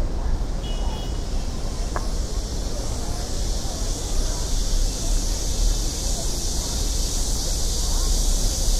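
Busy city ambience: a steady low rumble of traffic with a high, even hiss that grows louder after a few seconds, and faint voices.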